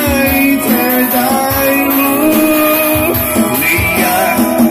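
A man singing into a microphone over backing music with a thumping bass drum and guitar, played loud through an outdoor PA system of subwoofers and newly built twin 12-inch mid cabinets under test.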